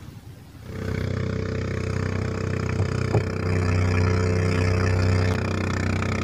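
A small boat engine starts up about a second in and then runs steadily.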